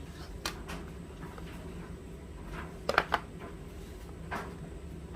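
A few light clicks and taps from handling the phone's box and packaging: one about half a second in, a quick pair near three seconds and another a little after four seconds, over a low steady hum.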